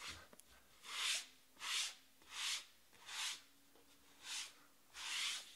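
Box cutter slicing through the plastic shrink wrap on a sealed trading-card box: six scraping strokes, a little under a second apart.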